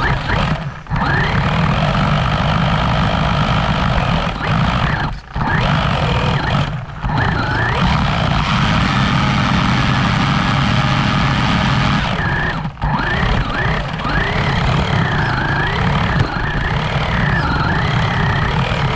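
Small RC car driving, heard up close from a camera mounted on it: a steady rumble of drivetrain and tyres with a motor whine that rises and falls with the throttle. The sound dips out briefly a few times when the throttle is released.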